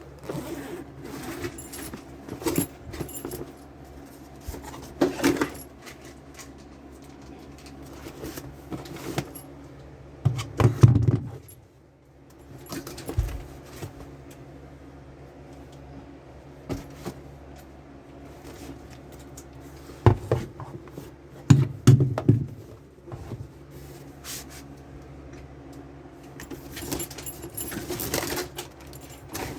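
Tools and packaging being handled during unboxing: scattered clicks and metallic clinks and rattles, with a few heavier thumps near the middle and again about two-thirds through, over a faint steady hum.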